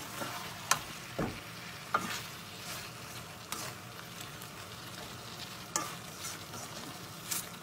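Green tomatoes and dried fish frying in oil in a metal wok, sizzling steadily, while a metal spatula stirs them and scrapes and knocks against the pan several times.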